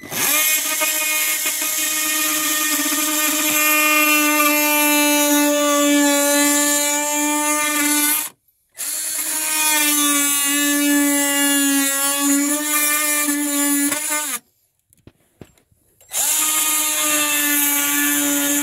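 JobMax oscillating multi-tool cutting through the plastic radiator fan shroud, making the slits of a notch around the filler neck. It runs as a steady buzz in three cuts with short pauses between, the last starting near the end.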